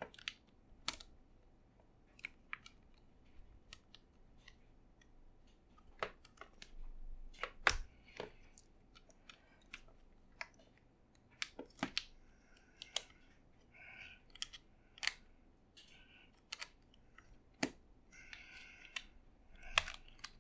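Irregular small clicks and snaps of an iRiver iHP-120 MP3 player's case being squeezed and forced together by hand, the new battery making it a tight fit.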